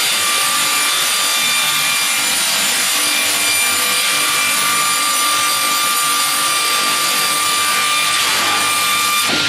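GP-500VRP slab-processing sawing machine running and cutting wood: a steady, loud sawing noise with a constant high whine.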